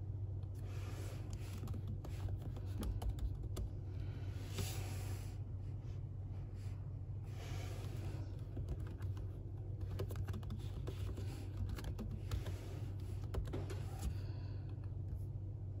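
Typing on a MacBook Air laptop keyboard: a running patter of key clicks, uneven in pace, over a steady low hum.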